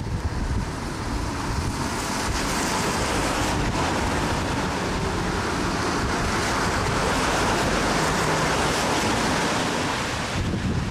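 Heavy rain hissing, with wind buffeting the microphone in a low fluttering rumble. The hiss swells about two seconds in and eases near the end.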